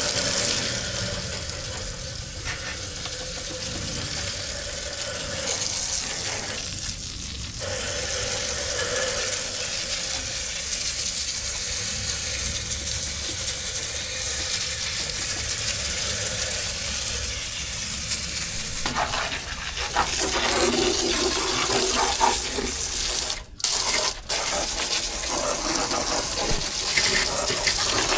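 Steady rush of running or spraying water. It briefly cuts out twice about twenty-three and twenty-four seconds in.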